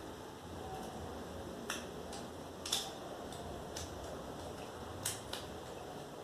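A few faint, sharp plastic clicks and taps from a smartphone's SIM card tray being handled as a SIM chip is fitted, five spread over several seconds.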